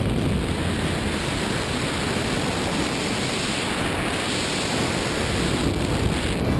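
Wind rushing over a small action-camera microphone during a tandem parachute descent under an open canopy: a steady roaring hiss with no breaks.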